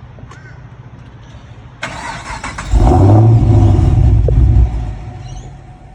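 Holden VF Commodore SS Redline's 6.2-litre V8 cold-starting. The starter cranks about two seconds in, and the engine catches a moment later with a loud flare of revs. It then drops back to a quieter idle near the end.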